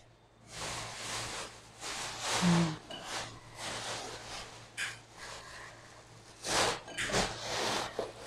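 Soft rustling and light knocks as sweet potato sticks are handled and dropped into a bowl of flour batter, with a few sharp clicks.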